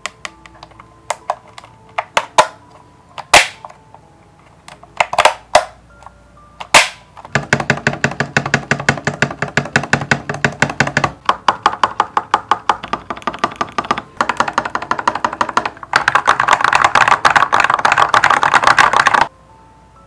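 Lofree 1% Transparent mechanical keyboard: separate single key presses on the stabilized keys such as the spacebar for the first several seconds, then fast continuous typing from about seven seconds in, which stops abruptly near the end. Faint background music underneath.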